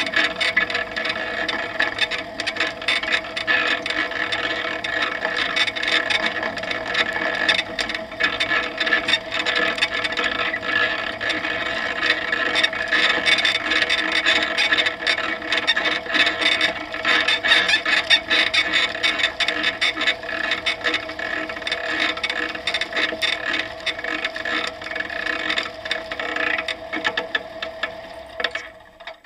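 Propeller engine of a Humbert Tetras ultralight running at taxi power, heard close up with a constant rattle as the aircraft rolls over grass. The engine is shut down and the sound dies away right at the end.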